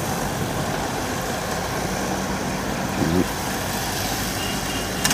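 Kubota tractor's diesel engine running steadily as it pulls a round straw baler across the field, with a short voice about three seconds in.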